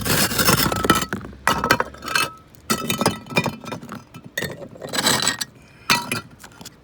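Pieces of broken roof tile clinking and scraping against one another as they are pulled out and handled: a string of irregular sharp clatters with a brief ring, the busiest in the first second or so.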